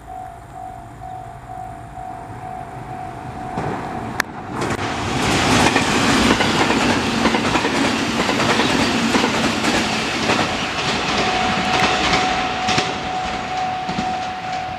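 The HB-E300 series hybrid diesel railcar train passes close by, building from about three seconds in, with wheels clacking over the rail joints, then fading near the end. A level crossing warning bell rings steadily before the train arrives and comes through again as the train moves off.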